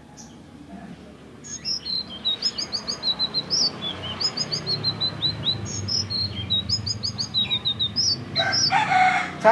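Selendang biru (sitrun) songbird singing: rapid repeated phrases of short high chirps and trills, growing louder about a second and a half in. A brief burst of noise comes near the end.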